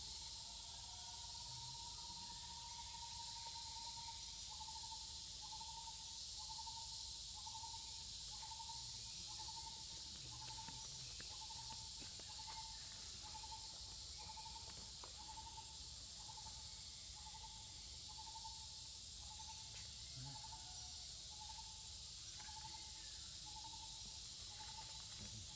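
Faint, steady insect chorus with a constant high shrill. Over it a single call note is held for about four seconds, then pulses regularly, about three times every two seconds.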